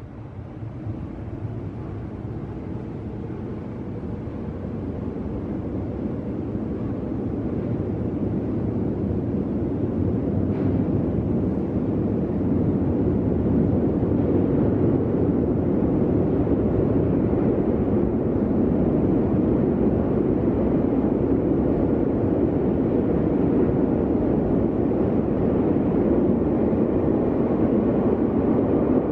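Rumble of a Nagano Electric Railway 8500 series train (ex-Tokyu 8500) approaching through the tunnel toward the underground platform. It grows steadily louder over the first dozen seconds, then holds at a steady level.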